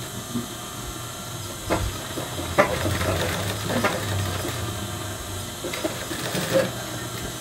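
Industrial sewing machine with its motor humming steadily; from about two seconds in it stitches in short runs with sharp clicks, backtacking to lock the seam.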